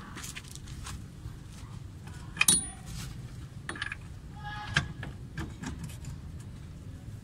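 Small metal clinks and light rattles of a hub nut and socket being fitted by hand onto a car's rear wheel hub spindle. There are two sharper, ringing clinks: one about two and a half seconds in and another about two seconds later.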